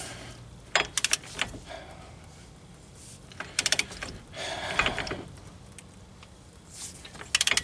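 Ratchet of a wrench clicking in short rapid runs, about four times, as the front axle hub nut is wound tight.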